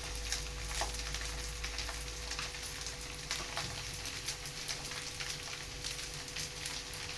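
Fried rice sizzling as it fries in a pan, with frequent small crackles and pops over a steady hiss.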